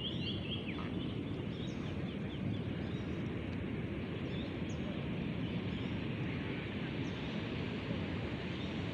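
Steady outdoor background noise with a few short, high bird chirps, one near the start.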